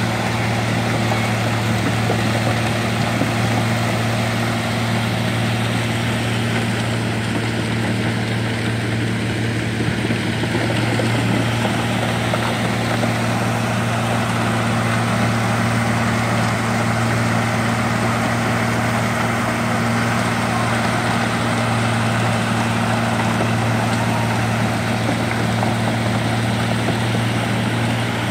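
A gold suction dredge running: its engine-driven pump drones steadily at a constant speed, mixed with water gushing out of the sluice box.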